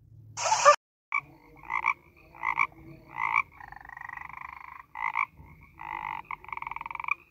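A frog croaking: short calls repeated about every 0.7 s, then longer, finely pulsing trills. A brief noisy burst comes right at the start, before the croaking.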